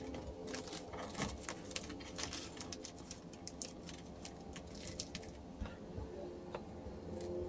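Blue painter's tape crinkling and rustling as it is wrapped and pressed by hand around small posts, a run of many small, irregular crackles, over a steady low hum.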